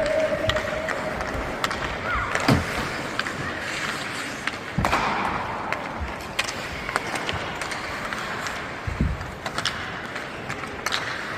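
Youth ice hockey play: skates scraping the ice under a steady rink din, with scattered sharp clacks of sticks and puck, and a louder knock with a spray of ice about five seconds in.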